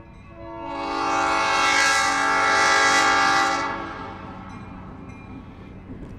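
Diesel locomotive's air horn sounding one long blast of several tones together, swelling in over the first second, holding about three seconds, then fading, over the low rumble of the passing train.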